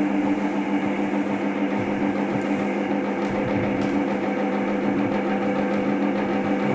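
Air conditioner running: a steady electrical hum over an even fan noise, the unit's noise complaint under repair.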